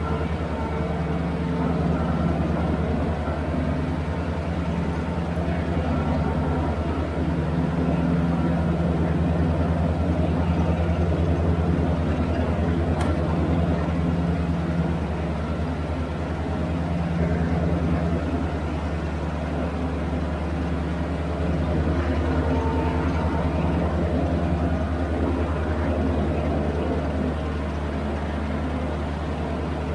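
Toro Groundsmaster 3280D ride-on mower's diesel engine running steadily as the mower drives and cuts grass, with mild swells in loudness.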